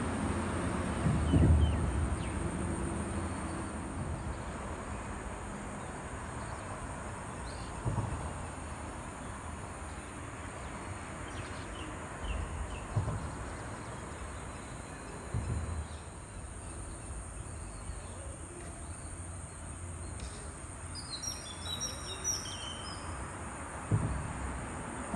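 Wetland ambience: a steady high-pitched drone, low rumbling thumps now and then, and a few faint short bird chirps, most of them about two-thirds of the way through.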